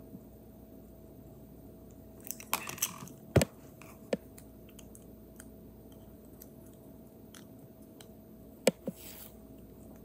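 Small plastic parts clicking and knocking as they are handled and pressed together: a few sharp clicks about two to four seconds in and one near the end, over a faint steady hum.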